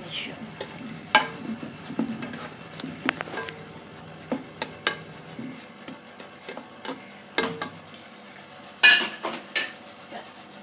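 Black spatula stirring and scraping through diced pork in a metal pan of simmering coconut milk, with irregular knocks of the spatula against the pan and a quick run of louder knocks about nine seconds in.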